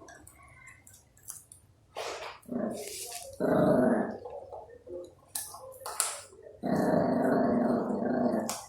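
Puppies growling at each other over food. There is a longer growl about three and a half seconds in and a second, longer one from about two-thirds of the way through to near the end, with short sharp snaps or yips between them.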